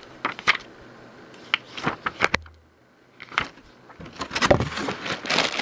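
Packaging being handled during unboxing: rustling and crinkling with scattered clicks and taps, a brief lull about halfway through, then busier rustling near the end.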